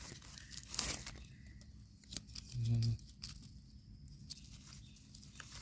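Sparse crackles and snaps of dry forest leaf litter and twigs, a few sharp clicks spread through over a faint rustle. A short low voice sound from a person a little before the middle.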